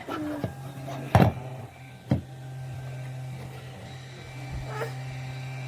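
Small electric fan motor humming steadily at one low pitch, setting in about half a second in, with two sharp clicks about a second and two seconds in.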